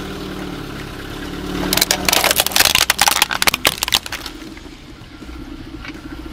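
A car tyre rolls over a plastic toy helicopter and crushes it: a couple of seconds of rapid cracks and snaps of breaking plastic, starting about two seconds in and stopping about four seconds in, over a steady low hum.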